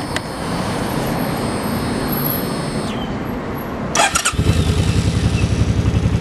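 2009 Suzuki Boulevard C50's 805 cc V-twin being started: a brief crank on the starter about four seconds in, then it catches at once and settles into a steady, evenly pulsing idle.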